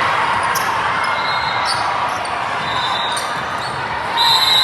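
Echoing gymnasium din during volleyball play: balls smacking and bouncing on the hardwood floor, with short high sneaker squeaks and a constant wash of voices in the hall. A louder high squeak or whistle-like tone comes near the end.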